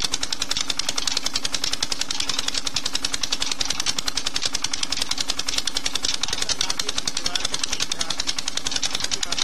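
Petter stationary diesel engine running steadily on pure jatropha oil: a fast, even knocking beat with a steady hum underneath.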